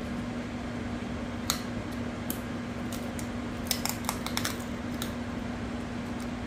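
Scattered light clicks from fingers handling a small plastic jar of nail crystals, with a quick cluster of clicks about four seconds in, over a steady low hum.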